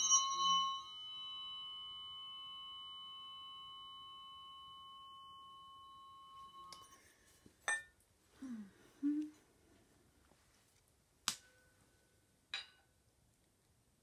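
Weighted tuning forks struck and left ringing with a steady, high, slowly fading tone, cut off abruptly about seven seconds in. After that come a few short clicks and taps.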